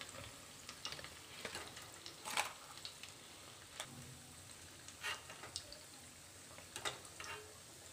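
Battered paneer pieces deep-frying in hot oil: a faint, steady sizzle with scattered sharp crackles and ticks.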